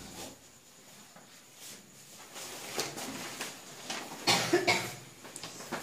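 Whiteboard marker strokes as words are written, with a cough about four seconds in, the loudest sound.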